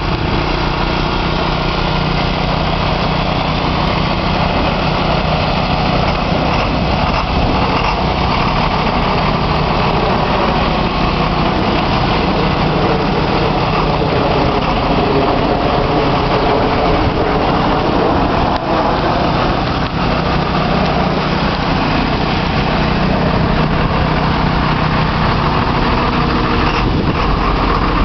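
Large diesel truck engine idling steadily.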